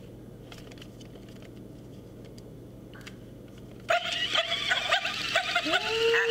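Hyper Pet Doggie Tail ball toy switched on. About four seconds in, its small built-in speaker starts playing recorded dog yips and barks, thin-sounding, with a rising then falling tone near the end. Before that there are only a few light clicks from the plastic ball being handled.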